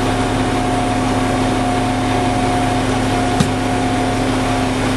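Fire engine's Caterpillar C-13 diesel running steadily, a constant hum with a few steady tones. A single short knock sounds about three and a half seconds in.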